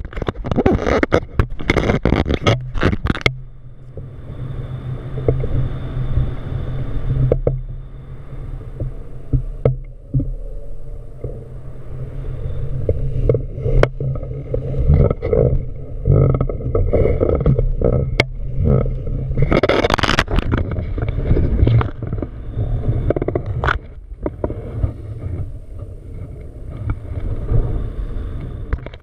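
Wind buffeting an action camera's microphone in paragliding flight: a heavy low rumble of rushing air, with a clatter of knocks in the first few seconds and scattered knocks after, from the loose camera mount. A louder gust of air about twenty seconds in.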